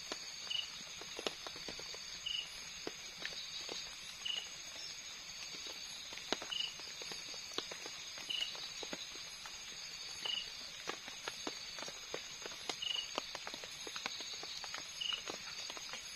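Night forest insect chorus: a steady high-pitched drone, with a short chirp that repeats about every two seconds. Close by, scattered light clicks and crinkles come from hands handling plastic bags and cooking gear.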